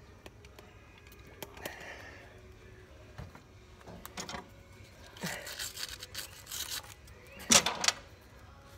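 Rag-and-hand cleaning of a corroded battery cable terminal: intermittent scratchy scrubbing and rustling with small clicks, loudest in a short burst near the end.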